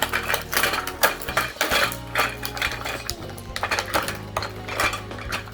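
Toy dishes, pans and utensils clattering and clinking together as they are handled, a string of short, irregular knocks, over steady background music.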